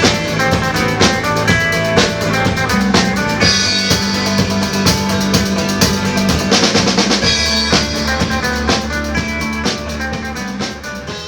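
Live band playing the instrumental close of a rock song: a drum kit keeps a steady beat under sustained bass and other instruments. The music fades away over the last few seconds.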